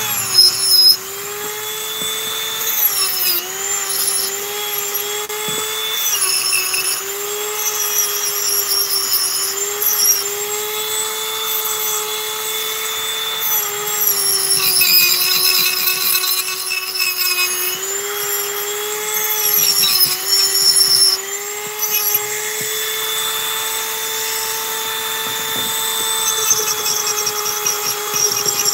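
Dremel rotary tool carving wood, running continuously with a high steady whine. The pitch sags several times as the bit is pressed into the wood under load, then climbs back as the pressure eases.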